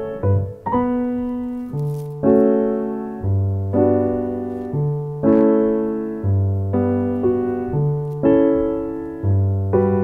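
Background piano music: slow, gentle chords struck about once or twice a second, each fading away before the next.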